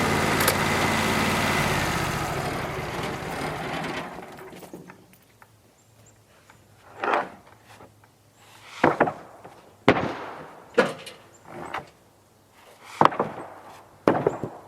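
An engine running fades out over the first few seconds. It is followed by about seven wooden knocks and clatters, one every second or two: sawn tamarack (larch) boards being handled and laid down on a stack.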